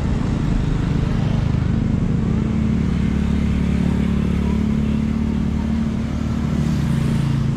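Engine of a nearby motor vehicle running steadily amid street traffic, its hum shifting slightly in pitch near the end.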